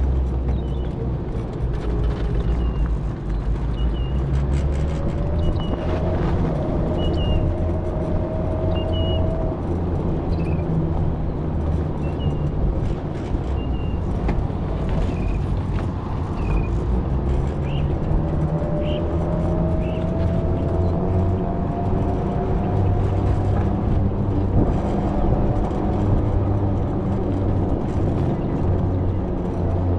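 A vehicle driving slowly on a paved road: a steady low rumble of motor and road noise, with a faint whine that rises in pitch twice as it picks up speed. Short high chirps come now and then through the first two-thirds.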